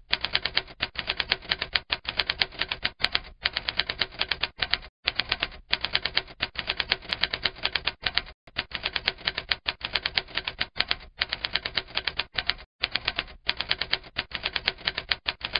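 Typewriter sound effect: rapid runs of key clacks broken every second or so by short pauses.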